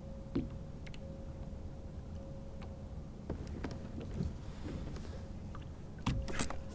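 Water lapping softly against a plastic kayak hull, with scattered small clicks and knocks from handling the rod and tackle, a louder knock about six seconds in, and a faint steady high hum throughout.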